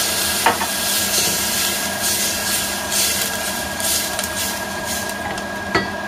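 Hot pot of sautéed meat, onions and carrots hissing and sizzling where water has just been poured in, with a wooden spoon stirring through it. One sharp knock of the spoon about half a second in, and the hiss eases slightly toward the end.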